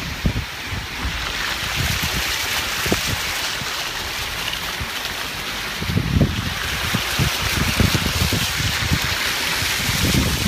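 Steady rush of river water spilling over a low-water crossing and small weir, heard from a slowly moving car. Irregular low thumps of wind buffeting the microphone come and go and are strongest in the second half.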